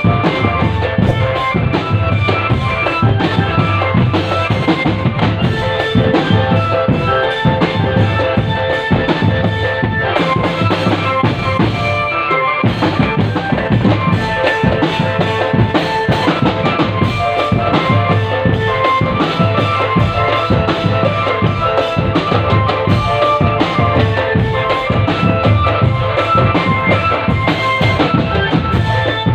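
Marching drum band playing live: snare and bass drums beating a dense, steady rhythm under a melody line.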